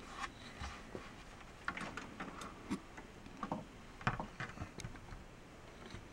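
Ball peen hammer lightly tapping the badge grommet of a 1965 Ludwig drum shell, backed by a second ball peen hammer held in a vise, to tighten a loose badge. About a dozen light, sharp taps come at irregular intervals.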